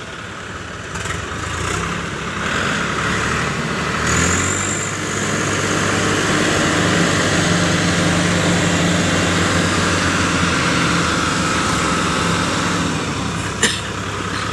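Diesel engines of a Kubota MU5501 and a Swaraj 744 tractor running hard in a tug-of-war pull. They rev up over the first few seconds, then hold a steady, loud pull under load, at least one engine with its silencer taken off. There is a single sharp crack near the end.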